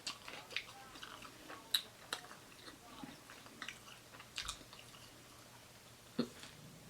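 Close-up chewing and wet mouth smacks of someone eating a cheesesteak sandwich, in irregular small clicks, the sharpest around two seconds in and again near the end.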